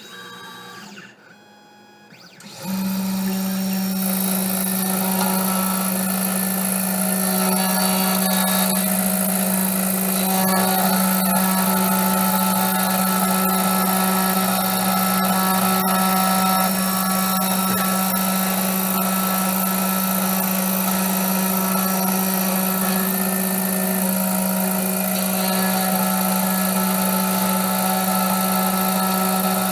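3D Pro Xtreme key-cutting machine starting up about three seconds in and running steadily, a hum with a hiss above it, as its cutter mills the second side of an HU66 high-security car key blank.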